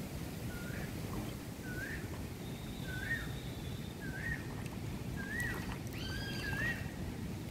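Steady wind rumble on the microphone over choppy river water, with a bird repeating a short rising chirp about once a second. A second, higher call joins about six seconds in.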